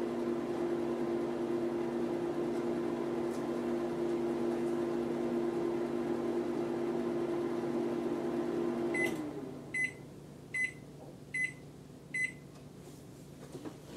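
Panasonic inverter microwave oven running with a steady hum that stops about nine seconds in. It then beeps five times, evenly spaced, to signal that the cooking cycle has finished.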